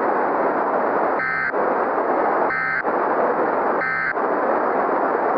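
Steady static hiss broken by three short, identical data chirps about a second and a quarter apart: the end-of-message (EOM) burst of an Emergency Alert System broadcast, sent three times to close the alert. The audio then cuts off abruptly.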